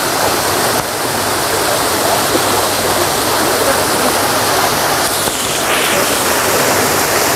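Steady rush of running water in a flow-through concrete carp pond, churned into continuous splashing by a dense mass of large common carp thrashing at the surface.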